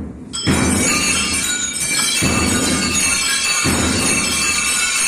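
Drums beating a slow march: a low beat about every one and a half to two seconds over a continuous rattling roll with a metallic jingle, starting about half a second in.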